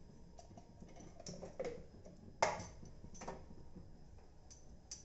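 Faint scattered clicks and light knocks of a spatula and utensils being handled at a nonstick frying pan, the two loudest knocks about halfway through.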